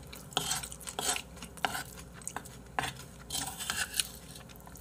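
A spoon and chopsticks clinking and scraping against a bowl while mixing and scooping up rice: a string of short, irregular clicks and scrapes.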